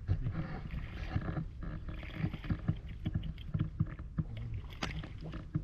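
Water splashing and sloshing irregularly, with many short knocks, as of someone moving and working in shallow water.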